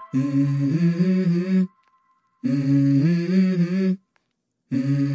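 Background music: a voice hums a short melody in three phrases, stepping between a few notes, with silent gaps between them.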